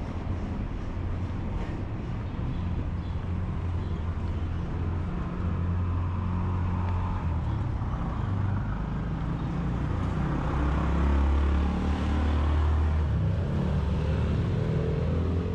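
Street traffic close by: car engines running and passing, with a steady low rumble that grows louder about ten seconds in.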